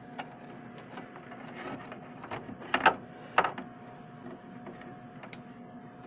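SATA cable and its plastic connector being handled and routed inside a desktop computer case: a few sharp clicks and taps, the loudest about three seconds in.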